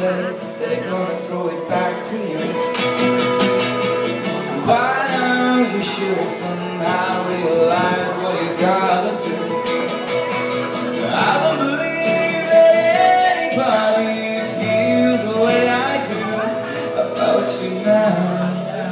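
Live acoustic guitar strumming with a male voice singing over it, recorded on a phone.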